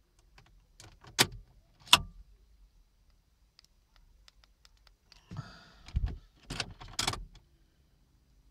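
Sharp clicks and clunks from a Vauxhall Zafira's key and door-lock mechanism: two clicks about a second apart, then a rustle with a low thump and two more clicks. The key is being tested after programming, and the new key has not taken.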